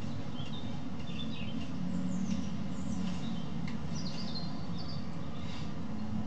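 Small birds chirping now and then over a steady low rumble of city background noise.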